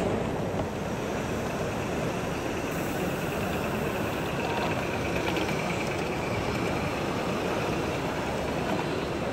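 Gauge 1 model trains running along the layout track, a steady rolling rumble of wheels on rail.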